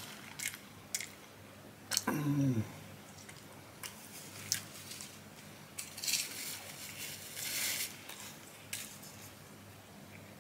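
Paper fast-food wrappers and a napkin rustling and crinkling as they are handled, with a few light clicks and taps. A short hum-like vocal sound comes about two seconds in, and the rustling is densest for a couple of seconds past the midpoint.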